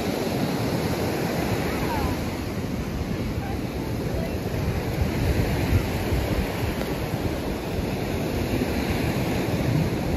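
Ocean surf washing onto a sandy beach, with wind gusting on the microphone, at a steady level. Faint voices of people on the beach.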